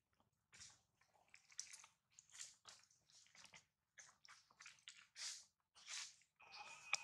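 Long-tailed macaque chewing food: soft, irregular crunching and crackling, several small crunches a second with brief pauses.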